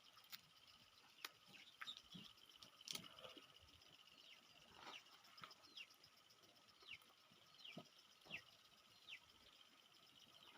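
Faint ambience: a bird giving short downward chirps, about one a second in the second half, over a steady high insect drone, with a few sharp clicks near the start.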